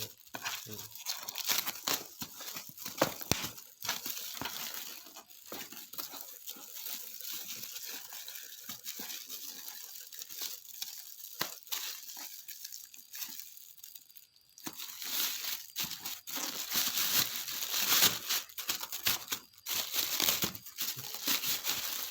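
Packaging being unwrapped from new shoes: irregular crinkling, rustling and tearing, with a louder stretch of crinkling in the last third.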